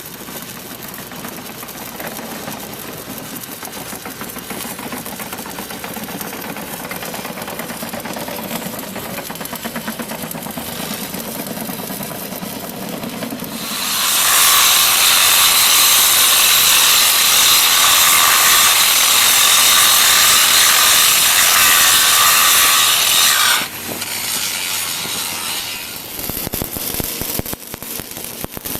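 Pipeline welding work: a steady crackling hiss for about the first half, then a much louder, harsher power-tool grinding noise for about ten seconds that cuts off abruptly, followed by quieter steady noise again.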